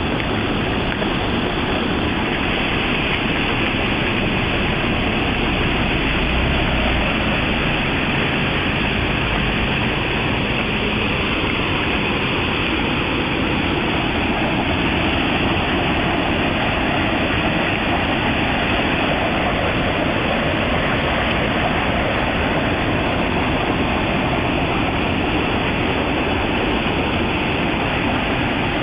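Steam and sulfur gas venting from a fumarole, a steady rushing hiss.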